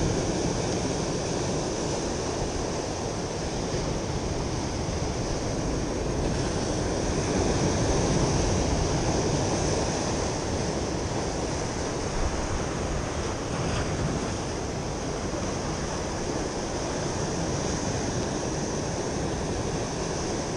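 Ocean surf washing over a rocky shoreline: a steady rushing wash that swells a little about eight seconds in.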